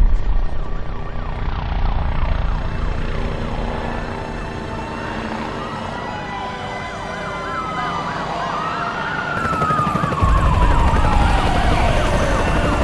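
Several emergency-vehicle sirens wailing and yelping at once, their pitches overlapping, with one siren sliding slowly down near the end. A low rumble runs underneath and gets louder about ten seconds in.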